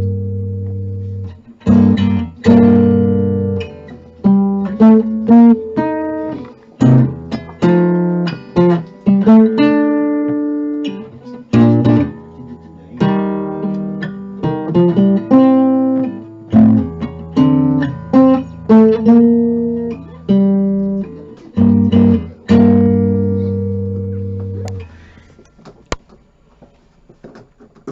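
1951 Epiphone Triumph Regent acoustic archtop guitar played chord-melody style: strummed chords with single picked notes between them, over held bass notes. Near the end a final chord is left to ring out and fade away.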